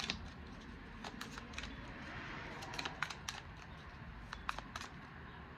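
Tarot deck being shuffled by hand: a scatter of light, irregular card clicks and snaps.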